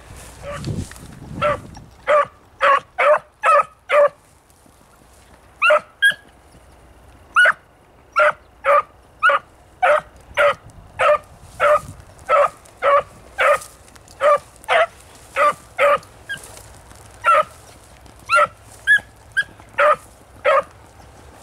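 A beagle barking in a long string of short, sharp barks, about two a second, with a couple of short pauses. A brief low rumble sounds near the start.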